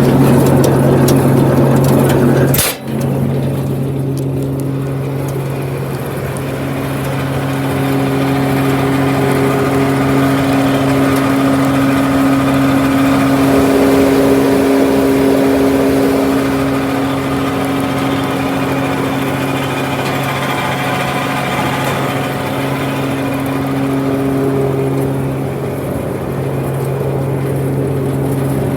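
Tractor engine and John Deere 700 grinder mixer running steadily with a constant mechanical hum, broken once by a brief sharp dropout about three seconds in.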